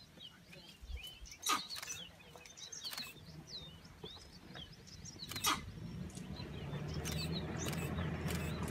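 Small birds chirping with a few sharp clicks in between; in the last few seconds a low engine hum of a vehicle grows steadily louder.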